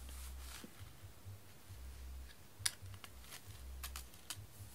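Faint handling noise: a few soft clicks and taps, mostly in the second half, over a low rumble that comes and goes.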